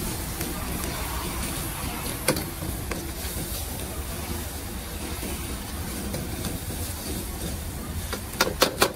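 Street-stall gas wok burner running with a steady rush, broken by one sharp metal clank about two seconds in and a quick run of clanks near the end.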